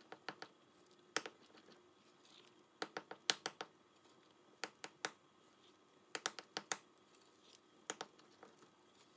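Metal utensil clicking against the side of a glass mixing bowl while stirring flour into a thick sugar syrup: faint, irregular clicks, some single and some in quick clusters of three or four.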